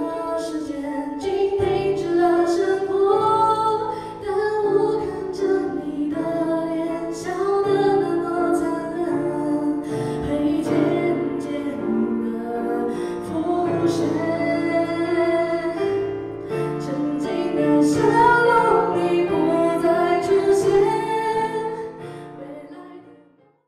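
Closing of a Mandarin pop song: a sung melody over instrumental accompaniment, fading out near the end.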